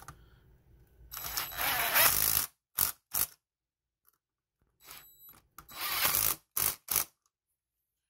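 Small powered driver with a socket running two nylon-insert lock nuts down onto a bus bar on battery cell terminals: two short runs of the tool, the first about a second in and lasting over a second, the second shorter, each followed by a couple of sharp clicks.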